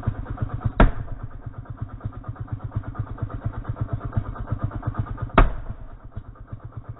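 Vintage McCulloch chainsaw engine idling with a slow, even pulse of about six or seven beats a second. Two sharp, loud knocks break in, about a second in and again about five seconds in.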